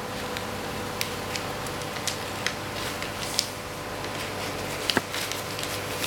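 A sheet of paper being folded and pressed flat by hand into a paper boat: scattered short paper crinkles and taps, with a small cluster about five seconds in, over a steady low electrical hum.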